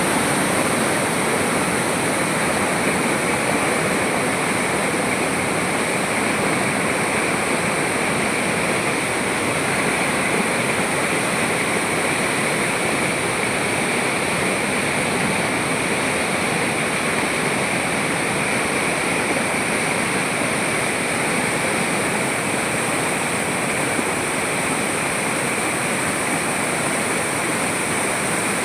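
Waterfall tumbling down a series of rock steps: a steady, unbroken rush of falling water.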